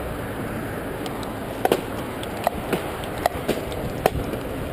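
Trek EX5 mountain bike rolling along a paved path, a steady rush of tyre and wind noise. A string of sharp clicks and rattles comes from the bike jolting over bumps, several in quick succession from about a second and a half in.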